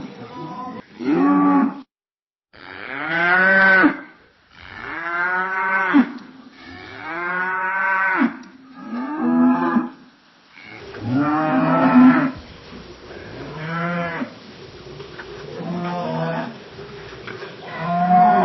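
Cows mooing, a string of about ten separate moos, each a second or so long with the pitch rising and then falling. About two seconds in, the sound cuts briefly to silence.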